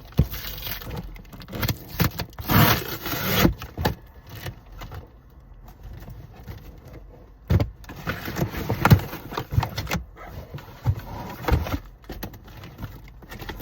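A taped cardboard box being forced open by hand: irregular tearing, scraping and rustling of packing tape and cardboard flaps, in several bursts.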